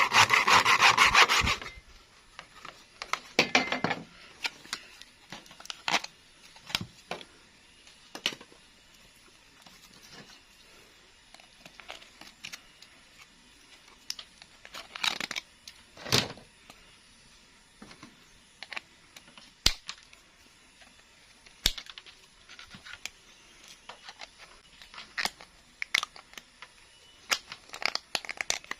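Hand-tool work: a short burst of fast rasping scrapes for the first second and a half, then scattered clicks and knocks of tools and parts being handled.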